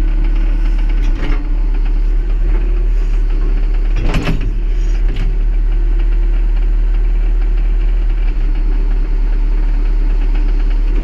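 Tractor engine running steadily as it powers the backhoe, with a loud knock about four seconds in and a couple of fainter ones around it.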